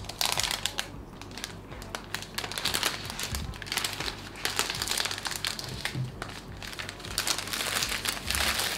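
Translucent protective wrap sheet being peeled and pulled off a new MacBook Air, crinkling in several bursts of crackly rustling.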